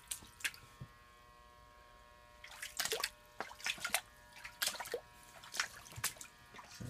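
Water splashing and dripping in irregular bursts on a flooded floor, over a steady electric hum. The splashes come mostly in the second half.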